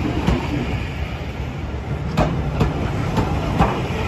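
Railway passenger coaches rolling slowly past with a steady low rumble, the wheels clicking over rail joints in pairs (clickety-clack).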